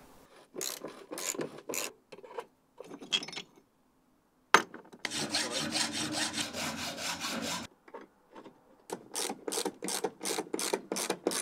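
Hacksaw cutting a threaded steel rod clamped in a vise, in short groups of back-and-forth strokes, about three a second near the end, with a longer unbroken stretch of rasping in the middle. A single sharp knock, the loudest sound, comes about four and a half seconds in.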